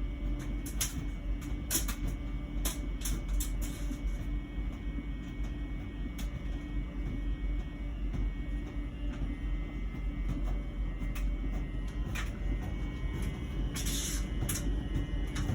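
LG heat pump ventless dryer running with a steady low buzzing hum, a new sound on this year-old dryer whose cause the owner does not know. Short sharp clicks come now and then over it.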